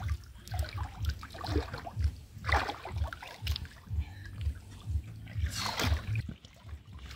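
Shallow water sloshing and splashing as two carp are lowered and let go in knee-deep water, with two louder splashes about two and a half seconds in and near six seconds. Low thuds about twice a second run underneath.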